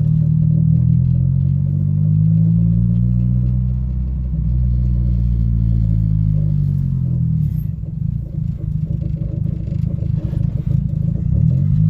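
Turbocharged Honda Civic EG four-cylinder engine idling, its speed rising and falling slowly a couple of times, then running rougher. This is the idle surge still present after a new idle air control valve was fitted, a cause the owner can't pin down.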